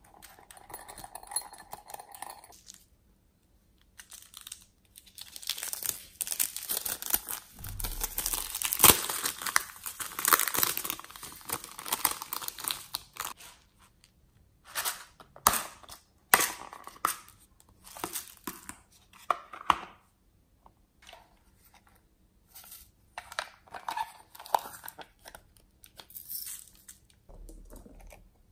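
Intermittent crinkling and tearing with scattered clicks as hands handle squishy foam toys over a tray of slime and beads. It is loudest in a long spell of crackling from about five to thirteen seconds in.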